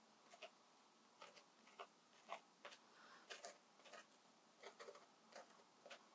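Paint-marker tip dabbing dots onto watercolour paper: a string of faint, irregular taps, about two or three a second.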